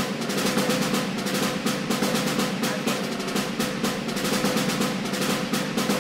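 Snare drum roll as background music, a fast, even rattle held at a steady level.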